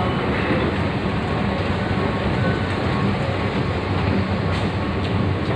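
Steady rumble of an underground metro train running through the station, heard in the concourse, with a few faint short beeps.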